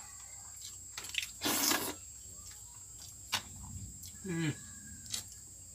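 A person eating watered rice (pakhal) by hand: a loud slurp about a second and a half in, a sharp click near three seconds, and a brief low hum falling in pitch just after four seconds. A faint steady high tone sits underneath.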